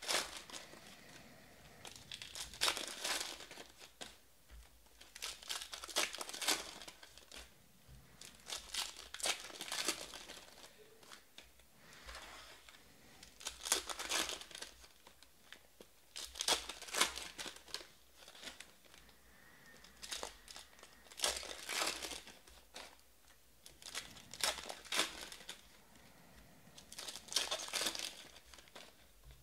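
Shiny wrappers of 2019 Panini Elite Extra Edition trading-card packs being torn open and crinkled by hand, in about nine bursts, one every three to four seconds.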